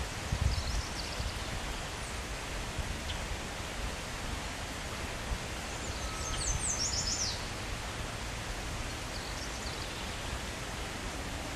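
Steady outdoor hiss of a breeze in leafy trees, with small birds chirping faintly and high: a short group of chirps about half a second in, a quick run of chirps about six seconds in, and another brief one near the end. A few low rumbles on the microphone at the very start.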